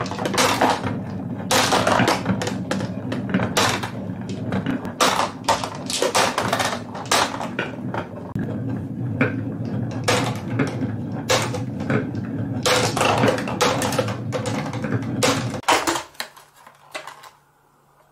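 Glass marbles rolling down a wavy-grooved wooden marble-run track with a steady rumble, clicking and clacking against each other and against a plastic toy airplane's cargo hold. The rolling stops near the end, leaving a few scattered clicks.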